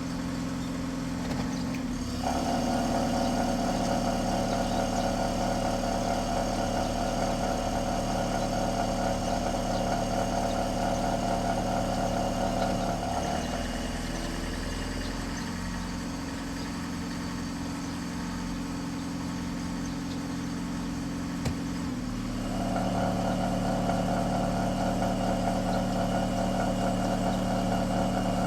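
Honda Stepwagon RK6 engine idling, with an added higher-pitched noise that comes in about two seconds in, fades out about halfway, and returns near the end. The noise comes from a faulty external accessory belt tensioner.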